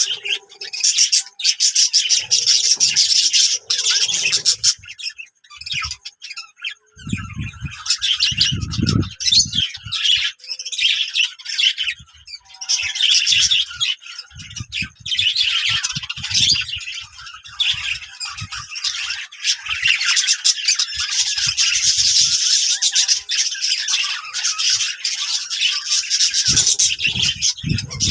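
A flock of Australian parrots chattering and squawking, a dense run of fast chirps and calls that continues throughout. A few low thumps come in among the calls, mostly about a third of the way in.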